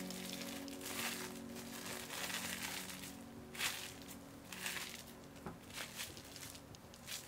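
Plastic cling film crinkling and rustling in irregular bursts as hands fold and press it around a block of dough, the loudest crackle about three and a half seconds in.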